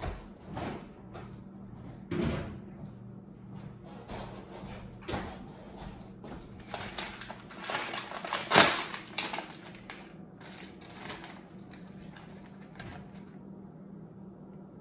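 A plastic cookie package crinkling and rustling as it is pulled open, loudest around eight seconds in, among scattered light knocks and clicks. A low steady hum runs underneath.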